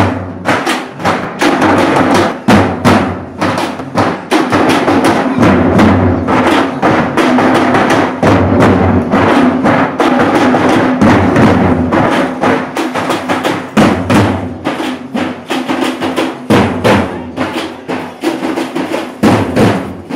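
A troupe of marching drummers beating large stick-played bass drums together in a fast, dense rhythm.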